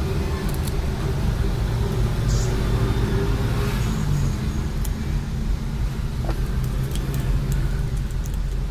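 Steady low mechanical hum in the background, with a few faint light clicks and ticks from small parts being handled during bench assembly.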